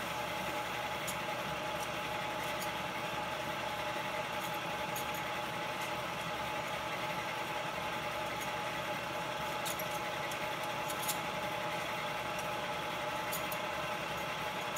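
Electric pottery wheel running at a steady speed: a constant motor hum with a faint steady whine, while wet hands pull up the wall of a clay cylinder on the spinning wheelhead. A few faint light clicks come through now and then.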